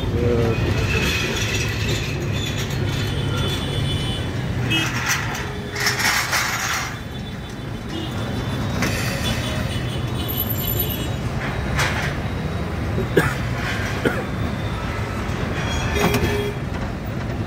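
Kolkata tram car running along the street just after pulling away: a steady low rumble from its motors and wheels on the track, with a few sharp knocks and clanks scattered through it.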